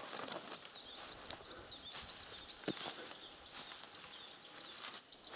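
A small songbird sings a quick run of high, wavering, twittering notes, fainter after about three seconds. Under it, footsteps rustle and crunch through dry grass, with one sharper knock about halfway through.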